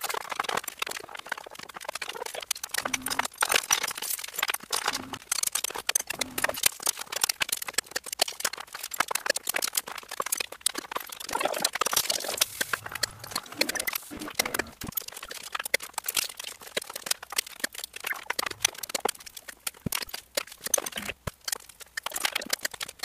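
Hand assembly of a 3D printer kit's frame and parts, run at time-lapse speed: a dense, continuous stream of quick clicks, knocks and rattles from parts, screws and tools.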